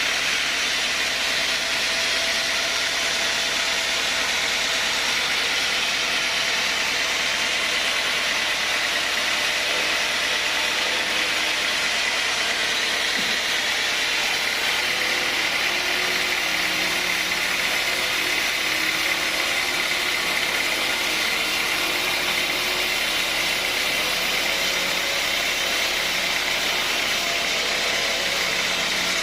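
Sawmill machinery running steadily, an even mechanical noise with no breaks or changes.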